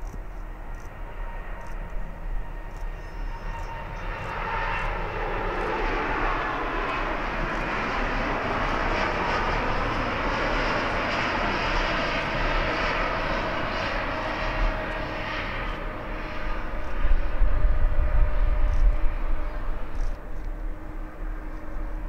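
Boeing 787 Dreamliner's jet engines at takeoff thrust as it rolls, lifts off and climbs away. The jet noise swells about four seconds in and holds steady, then its higher part fades as a deep rumble takes over, loudest a few seconds before the end.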